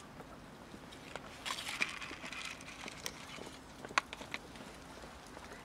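Stray cats eating dry kibble from plastic tubs: scattered crunching, clicks and rustles, with a short rustling burst about a second and a half in and a sharp click about four seconds in.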